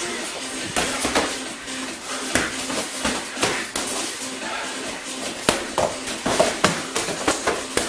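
Kyokushin karate sparring: gloved punches and kicks landing on the partner's gloves, body and shin guards, an irregular string of sharp smacks and thuds, several close together near the end.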